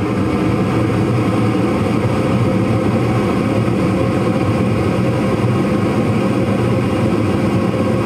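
Gas furnace firing, with a steady low rumble of burners and fan. The furnace is short-cycling, lighting and cutting out every 15 seconds or so, which the owner puts down to a dirty flame sensor.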